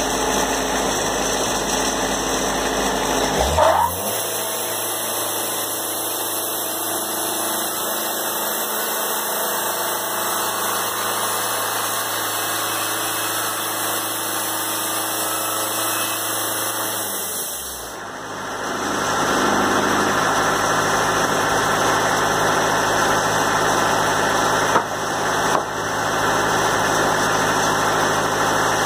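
Wood-Mizer portable sawmill's engine running steadily. About three and a half seconds in it revs up with a rising sweep and the deep hum drops away; around eighteen seconds the sound dips briefly and comes back fuller and louder, with a single sharp knock near twenty-five seconds.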